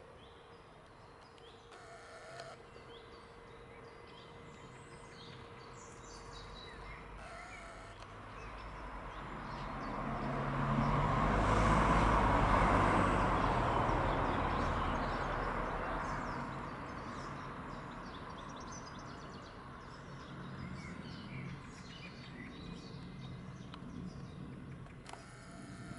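Birds calling faintly with short high chirps, while a passing vehicle's rushing noise builds to a peak about halfway through and fades away.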